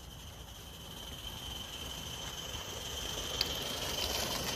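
Coal-fired Accucraft Ragleth live-steam garden-railway locomotive approaching and passing close. Its steam hiss and the light clicking of its wheels on the track grow louder toward the end.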